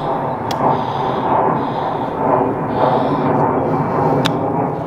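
Airplane engine noise from a plane passing over, heard as a steady, loud rush without a clear pitch.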